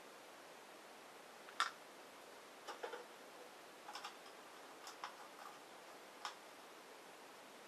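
Light taps and clicks of a brush and watercolour paper being handled on a wooden painting board, about seven in all, the first the loudest, over a low steady hiss.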